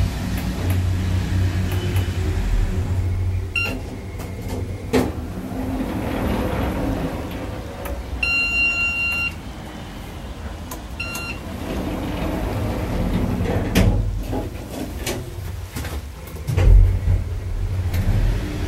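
MAJES passenger elevator: electronic signal beeps, two short ones and a longer beep of about a second, while the automatic sliding doors open and close. Underneath is a steady low hum, with a few sharp clicks and knocks.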